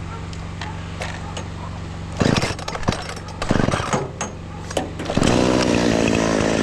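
Chainsaw idling, blipped up briefly twice, then held at high revs from about five seconds in.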